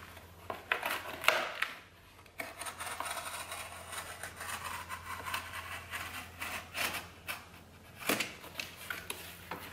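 Box cutter blade drawn through corrugated cardboard, a steady scraping rasp lasting several seconds, with a few sharp clicks before it as the cut is taken over again.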